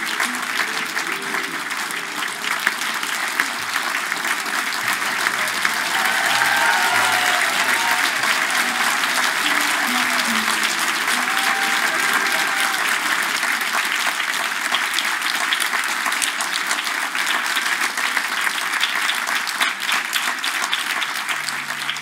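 Audience applauding steadily and loudly, a dense patter of many hands clapping, with some voices mixed in.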